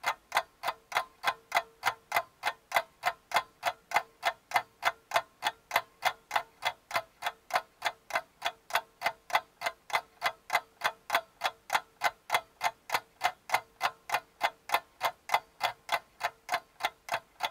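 Even, clock-like ticking, about three and a half ticks a second, with a faint steady hum under it.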